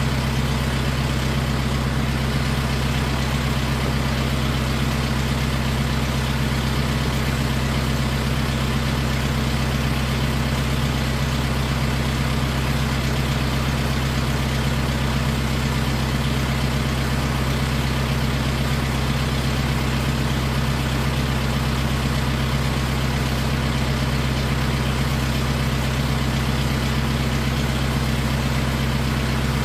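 Tractor engine idling steadily, an even low drone with no change in speed.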